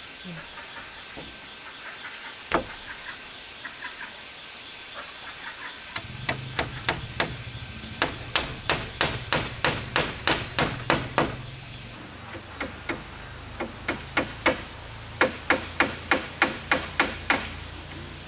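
Hammer driving nails into wood: quick, even blows at about three a second, in two long runs with scattered single blows before and between them.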